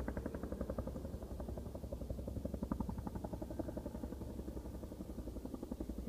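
Helicopter on a firefighting water drop, its rotor beating in a fast, steady pulse over the low drone of its engine.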